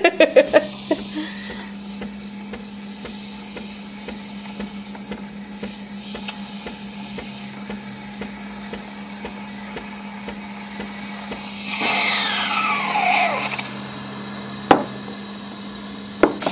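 Handling sounds at a Breville espresso machine: light clicks and knocks over a steady low hum. About twelve seconds in a squeak falls in pitch, as the portafilter is twisted into the group head, and a sharp knock follows a couple of seconds later.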